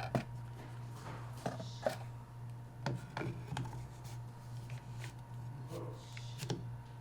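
Scattered light clicks and knocks of a rifle stock being slid onto a buffer tube and handled, over a steady low hum.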